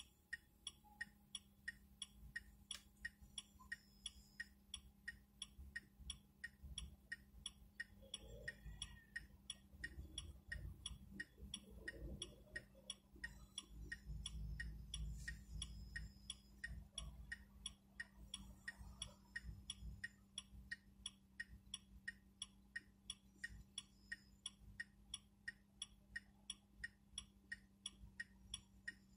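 Smart ForTwo's indicator ticker clicking in a steady, even rhythm inside the car's cabin, over a steady low hum and a low rumble that swells in the middle.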